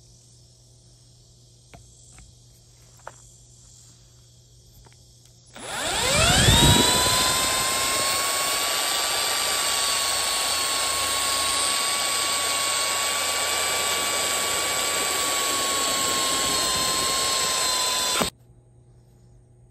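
Electric drill with a steel twist bit grinding the head off a rivet in an aluminium door hinge. The motor spins up with a rising whine about five seconds in, runs at a steady whine for about twelve seconds, and stops abruptly.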